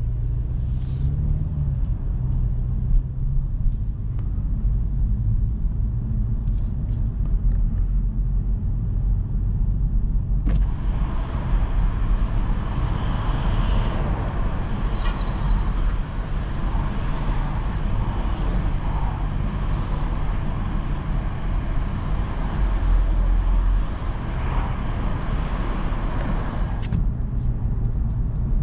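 Genesis G70 Shooting Brake's 2.0-litre turbocharged four-cylinder and tyres heard from the cabin while driving: a steady low rumble. About ten seconds in a broad hiss comes in on top of it and cuts off a couple of seconds before the end.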